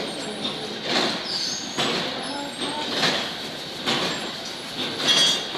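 Water packaging machinery clattering, with a sharp knock about once a second in a steady working rhythm, and faint voices in the background.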